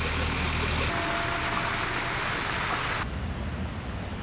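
Outdoor street ambience: a steady, even hiss that changes abruptly about a second in and again about three seconds in.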